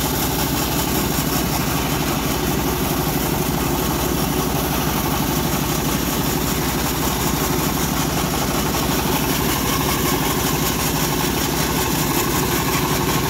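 Homemade band sawmill running steadily, its drive and blade keeping an even pitch without a break.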